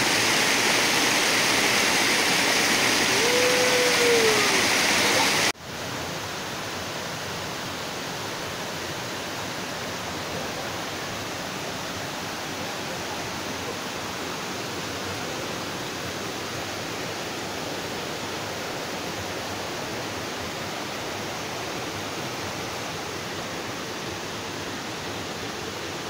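Water of a rocky forest stream cascading over boulders, a steady rushing hiss. About five seconds in it cuts abruptly to a quieter, even rush that runs on unchanged.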